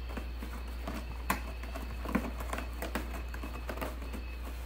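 Cat's claws scratching and scrabbling on a corrugated cardboard scratcher: irregular scrapes and taps, with two sharper ones about a second and two seconds in.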